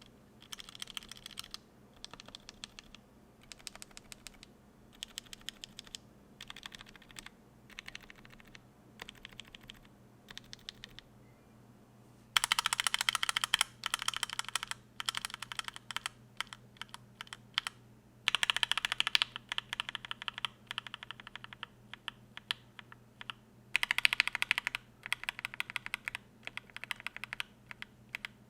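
Lubed linear mechanical keyboard switches in a polycarbonate-plated keyboard being pressed and typed on. For about the first twelve seconds there are short, quiet groups of clacks. From about twelve seconds in come louder bursts of fast typing, a few seconds each, with short pauses between them.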